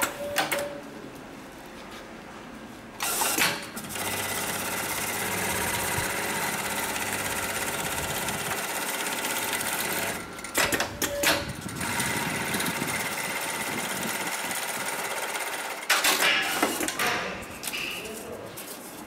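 HighTex MLK300-2516 programmable pattern sewing machine stitching in two steady runs of about six and four seconds. Bursts of sharp clicks and knocks come before, between and after the runs.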